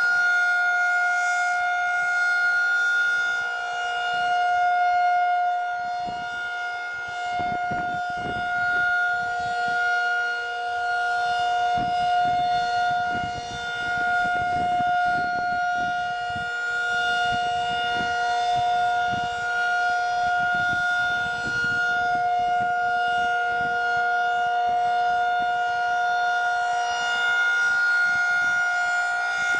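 Federal Signal 2001-SRN civil defense siren sounding its full-alert signal: one steady, unbroken tone that swells and fades every few seconds as the rotating siren turns.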